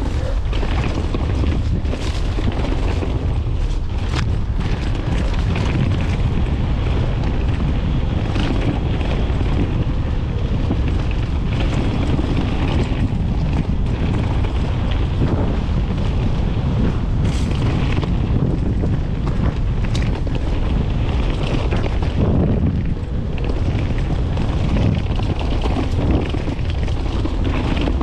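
Mountain bike riding down a dry dirt trail at speed: wind buffets the microphone over a steady rumble of the tyres. A few sharp knocks and rattles of the bike over bumps, one about two seconds in and a couple more near the middle.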